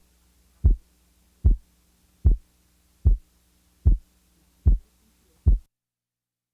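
Heart sounds by auscultation: eight short, regular beats about 0.8 seconds apart, stopping shortly before the end. The second heart sound is split by 25 milliseconds, the aortic and pulmonic valve closures only narrowly apart.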